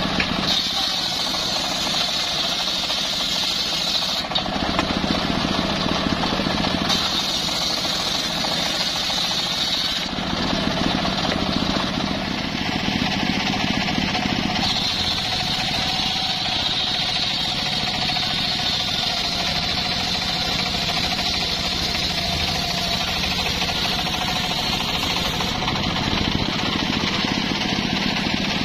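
Large circular table saw running and ripping teak boards: a steady, loud mechanical drone of the spinning blade and its motor, with the sound of the cut shifting abruptly several times as boards are fed through.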